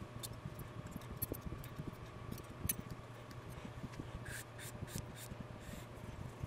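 Light clicks and taps of thin steel feeler gauges being handled and laid down on a granite surface plate while a mouthpiece facing is checked, with a quick run of several sharper clicks about four to five seconds in. A low steady hum sits underneath.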